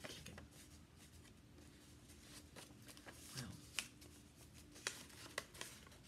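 Faint rustling of a folded sheet of paper being handled and refolded, with a few sharp crinkles in the second half.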